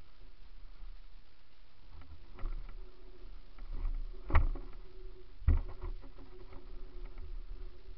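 Mountain bike rattling down a dirt singletrack, with a steady low rumble from the ride. Two sharp knocks, about a second apart near the middle, as the bike jolts over bumps.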